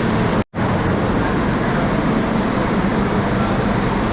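Steady road and engine noise heard inside a moving vehicle, cutting out completely for a split second about half a second in.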